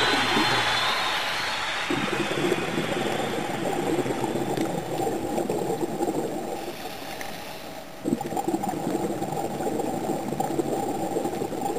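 Scuba diver's exhaled air bubbles gurgling past an underwater camera housing, a dense crackling rush that eases off and then starts again suddenly about eight seconds in, with the next breath out.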